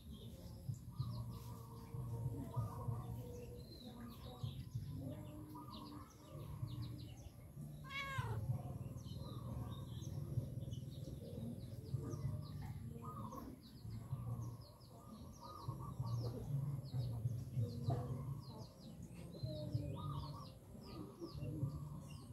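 Domestic cat purring, a low rumble that swells and pauses every second or two with its breathing, while small birds chirp in the background.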